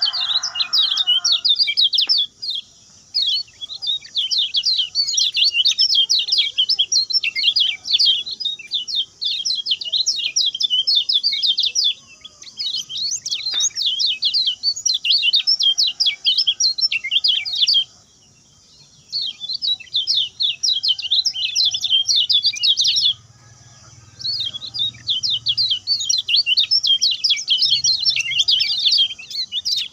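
Kecial kuning (yellow-bellied warbler) singing its fast, short-phrased song: long runs of rapid, high, sharp notes, broken by brief pauses about twelve, eighteen and twenty-three seconds in.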